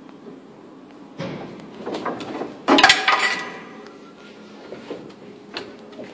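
Knocks, scrapes and creaks of carpentry work on a wooden boat hull, with a plank being worked against the frames; the loudest is a sharp knock and rattle about three seconds in.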